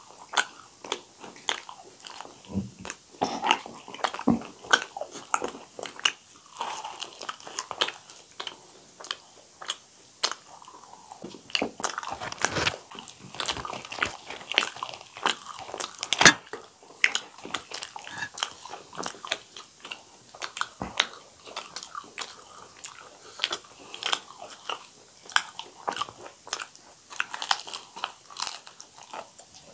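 Close-miked chewing and biting of poori (puffed fried bread) by two people eating by hand: an irregular, continuous run of short crunchy mouth clicks.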